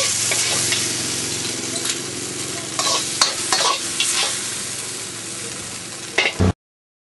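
Food sizzling as it is stir-fried in a hot pan, with scrapes and knocks of a spatula against the pan. It cuts off abruptly near the end.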